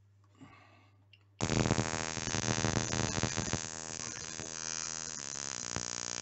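Spark from a DC CDI ignition on a test bench starts up suddenly about a second and a half in as a loud, steady, rasping buzz of rapid sparks. It means the simulated pickup signal has dropped to 50 Hz (3000 rpm), below the CDI's 5000 rpm rev limiter, so the CDI is firing again.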